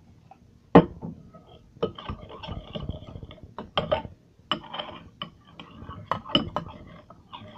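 A spoon clinking and scraping against a bowl in irregular knocks as activator is stirred into a glue and shaving-cream slime mix. The loudest knock comes about three-quarters of a second in.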